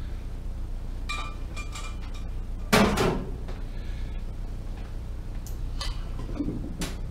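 Stainless steel brew pot clanking and ringing as it is handled and set down, with one loudest knock about three seconds in, then lighter clicks and knocks, over a steady low hum.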